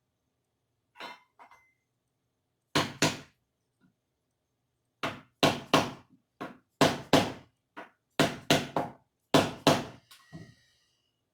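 Hammer blows on metal during the straightening of an antique sword's parts: about fifteen sharp strikes, many in quick pairs or threes, with short pauses between groups.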